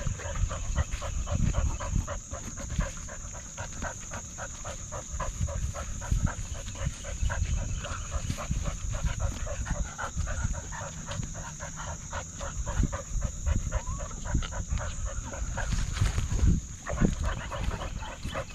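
A dog panting rapidly and evenly, heard close up from a camera strapped to its own back, over a low rumble of the mount jostling with its stride.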